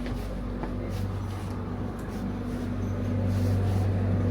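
A train's steady low mechanical hum, getting louder about three seconds in.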